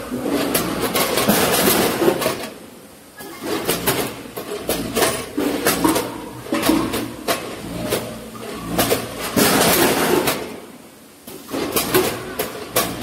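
Multihead weigher running: stainless-steel hopper gates clacking open and shut and frozen chicken pieces knocking against the metal hoppers, a busy clatter of clicks and knocks. It comes in bursts, with short lulls about two and a half seconds in and again near eleven seconds.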